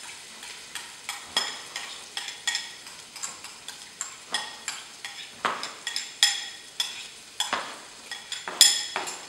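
Garlic and onions sizzling in oil in a stainless steel pot, under irregular sharp taps and clinks, about two or three a second, some with a brief metallic ring, from utensils on the pot and a knife on the cutting board.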